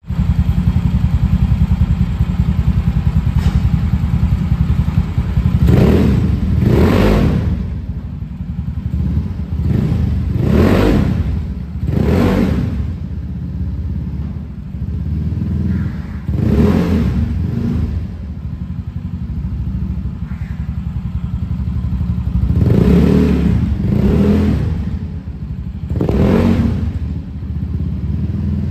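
Carburetted Yamaha Mio scooter's single-cylinder four-stroke engine running through a PDW standard-racing exhaust with its end baffle removed, idling with a deep, bassy note and blipped on the throttle about eight times.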